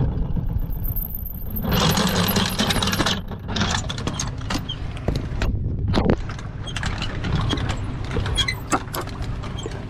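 Truck engine running low and steady while the boat trailer is backed down the launch ramp, with scattered clicks and rattles and a louder rushing noise lasting about a second and a half, from about two seconds in.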